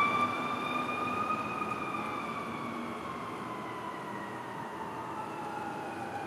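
Fire engine siren wailing, slowly rising and then falling in pitch and fading as the truck drives away, over steady street noise.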